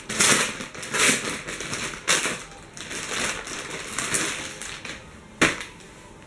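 Plastic packaging bag crinkling and rustling in a series of bursts as it is handled and opened, with one sharp click near the end.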